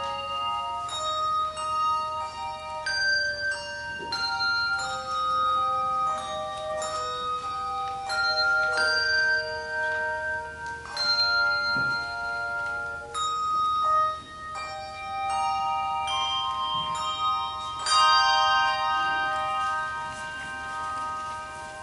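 Handbells playing a melody in chords, each struck note ringing on. A final chord is struck near the end and rings out, fading away.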